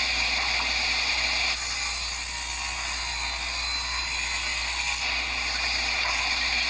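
Table saw running while ripping thin strips off a wooden board: a steady high-pitched whine and hiss that is a little quieter through the middle.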